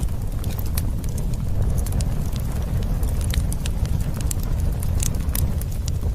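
Campfire burning, wood crackling with many sharp, irregular pops over a steady low rumble.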